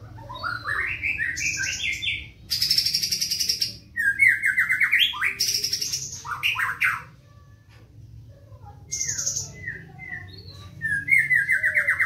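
Black-tailed white-rumped shama (murai batu) singing in fast, tightly packed phrases: runs of quick sliding notes broken by harsh, buzzy rattles, the loudest about three seconds in, with a short lull past the middle before it picks up again.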